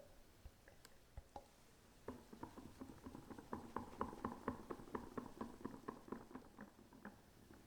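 Rapid, irregular light tapping and clicking of kitchen utensils during cake-making, starting about two seconds in after a few scattered clicks.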